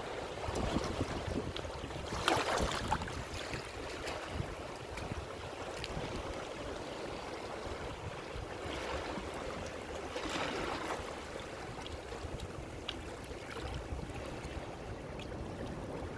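Ocean waves washing in: a steady rush of surf, with a louder wave breaking about two seconds in and another about ten seconds in.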